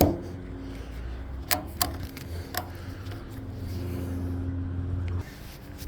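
A few sharp metallic clicks from the ratchet-strap hardware being worked loose, over a steady low hum that stops about five seconds in.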